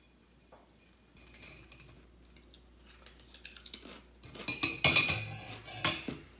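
Cutlery and dishes clinking and clattering: a few light clinks, then a louder run of clatter about four to five seconds in.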